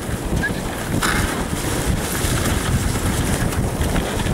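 Steady wind rumble on the microphone, with the hiss of a moving dog sled's runners over snow as the husky team pulls it along.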